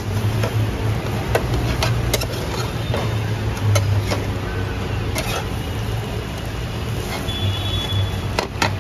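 Metal spatula scraping and tapping against a steel frying pan as an omelette is folded and turned, several short sharp clicks spread through, over a steady low rumble.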